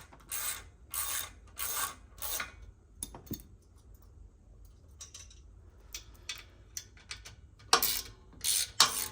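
Hand ratchet wrench clicking in a series of short strokes, fainter in the middle and louder again near the end, as it works a fastener loose.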